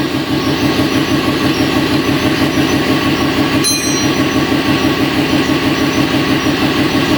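A machine running steadily with a fast, even rhythmic pulse and a steady hum.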